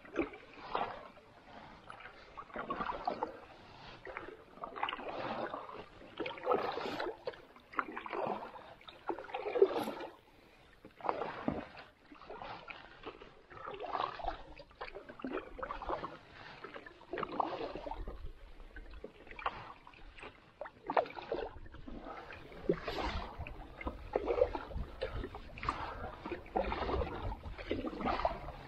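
Canoe paddle strokes through calm water, one stroke every one and a half to two seconds.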